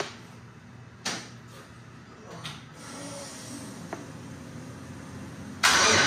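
A few scattered knocks and clicks of handling, a door or cupboard kind of sound, over a quiet garage background; near the end music starts abruptly and loudly.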